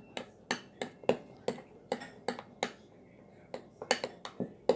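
Metal spoon clicking against the side of a white ceramic bowl as it stirs a glue and shaving-cream slime mixture quickly, about three clicks a second, with a short pause about three seconds in.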